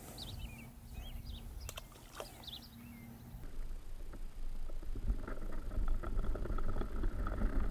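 Low outdoor rumble with a bird's quick high chirps. About three and a half seconds in, this gives way to the muffled sound from an underwater camera: rough water noise with many small ticks and clicks.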